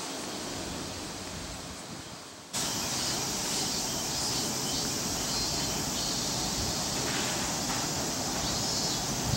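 Wind and rustling leaves fading for about two and a half seconds, then a sudden change to the steady running noise of an approaching E231-series electric train, its wheels rumbling on the rails.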